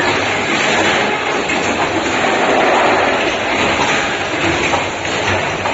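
Automatic liquid filling and capping line running: a steady mechanical clatter of many small clicks over a low hum.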